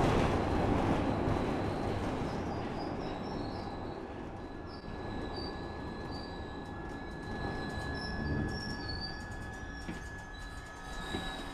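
Glasgow Subway train running and slowing, its rumble fading away while short high wheel squeals come and go over a steady high-pitched tone.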